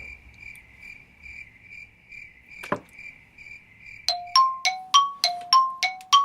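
A cricket-chirp sound effect, a high tone pulsing about twice a second, with a single sharp click in the middle. About four seconds in it gives way to a quick run of eight bell-like dings, each dying away fast and alternating between a lower and a higher pitch.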